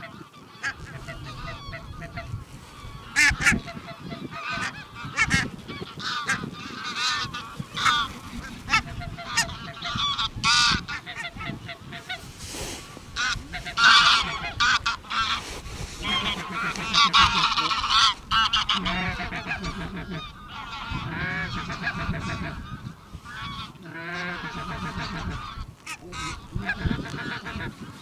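A flock of barnacle geese calling: many short honks overlap one another, thickest around the middle.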